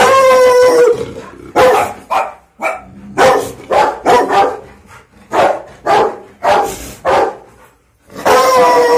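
Rottweiler barking hard at close range, about a dozen barks: a drawn-out pitched bark at the start, a run of short sharp barks, and another long drawn-out bark near the end.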